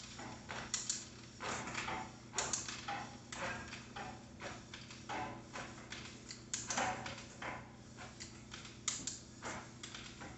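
Irregular clicks and light ticks, a few per second with uneven gaps, from hands working the handlebar-mounted parts of a 29-inch carbon mountain bike on a repair stand, over a steady low hum.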